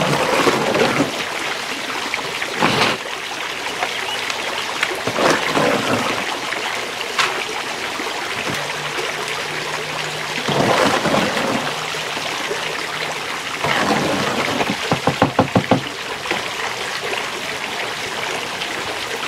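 Wet Quikrete 5000 concrete being dumped into a plastic mould and worked with a trowel: irregular wet slops and scrapes, with a quick run of sharp taps about three-quarters of the way through.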